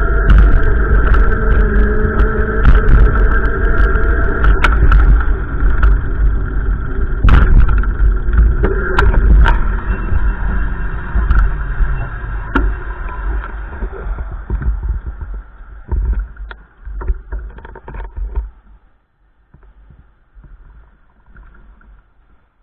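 Gusty wind buffeting the microphone: a loud, heavy rumble with scattered knocks and clicks, easing off and dropping away about three quarters of the way through.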